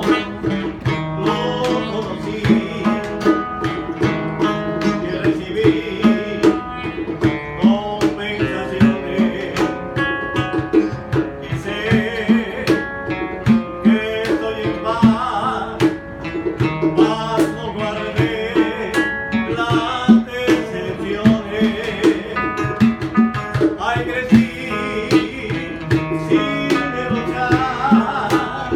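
Live acoustic band music: two acoustic guitars strummed and picked over a steady cajón beat, with a man singing.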